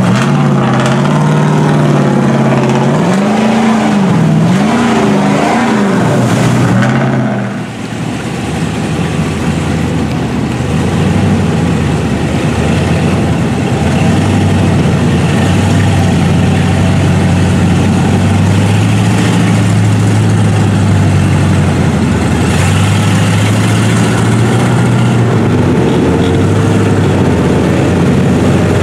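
Lifted mud truck engines: an engine revved up and down several times in the first seven seconds, then, after a short dip, a steady engine drone with small changes in pitch as a truck wades through deep water.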